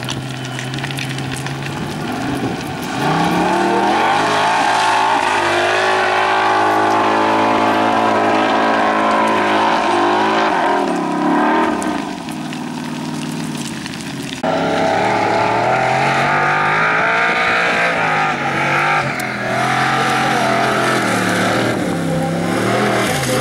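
Formula Offroad race car's engine running at high revs, its pitch rising and falling repeatedly as the throttle is worked, with an abrupt change in the sound about two-thirds of the way through.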